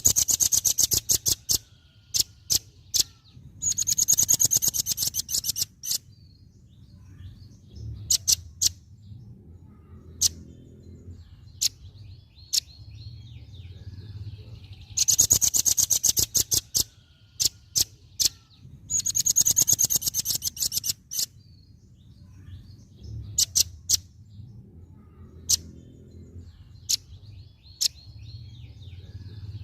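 Velvet-fronted nuthatch singing: loud, very rapid high trills about a second and a half to two seconds long, repeated four times, with single sharp chirps and softer twittering in between.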